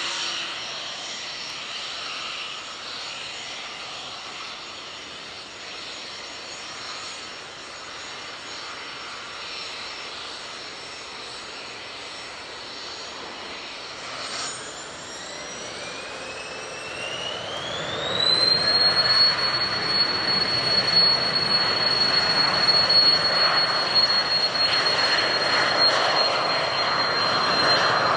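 Airliner's jet engines spooling up to takeoff thrust: a whine rises in pitch over about four seconds from midway, then holds steady while the engine rumble grows much louder.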